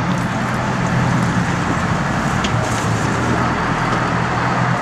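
Sport-fishing boat's engine running with a steady low drone, under the rush of water and wind.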